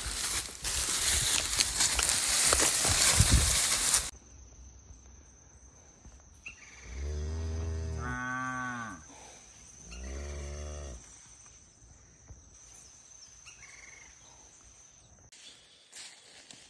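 A loud rustling noise that cuts off abruptly about four seconds in. Then a young Charolais calf moos twice: a long moo of about two seconds, and a shorter one a second later.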